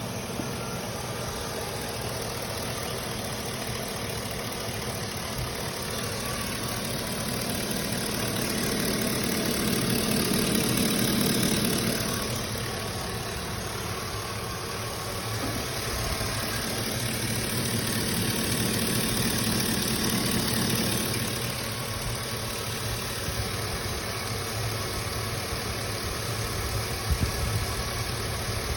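Chevy Silverado 1500 V8 pickup engine running, mostly a steady idle that swells louder twice, around ten and twenty seconds in. A knock-sensor code (P0332) is set, but the owner hears no knocking in it.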